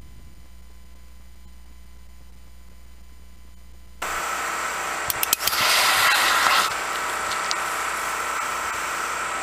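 A faint steady hum, then a steady outdoor hiss begins about four seconds in. About a second later come a few sharp clicks and a loud rushing hiss lasting about a second and a half: the thermite charge in the graphite mould igniting and burning to weld the bond strap to the rail.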